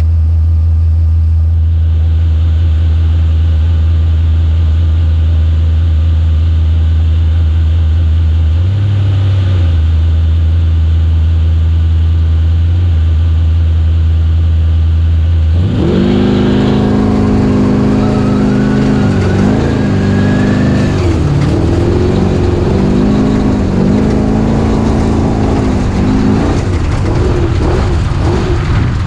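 Engine idling with a steady low hum, then about fifteen seconds in it revs up and runs at rising and falling speed as the vehicle pulls away, with a thin whine that climbs for a few seconds.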